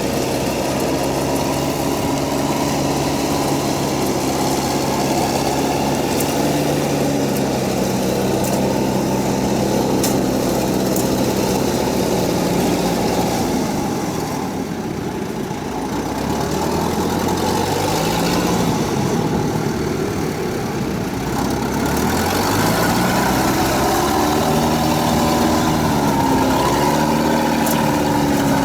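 Kubota DC70 combine harvester's diesel engine running, its pitch shifting as engine speed changes. It drops a little quieter about halfway through, then climbs and wavers in pitch toward the end.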